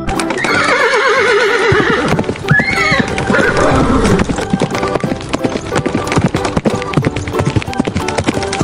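Horse whinnying twice, each a quavering neigh that falls in pitch, the second starting about two and a half seconds in, over a steady clip-clop of hooves.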